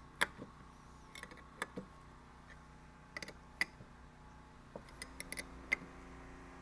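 Irregular light metallic clicks and clinks of tools and steel parts being handled while test-fitting a cast iron steering box onto its bracket studs.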